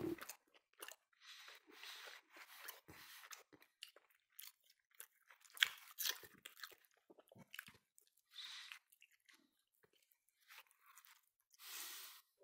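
A person chewing and biting baked chicken held in the fingers, in short irregular bouts with quiet gaps between, and one sharper, louder snap about halfway through.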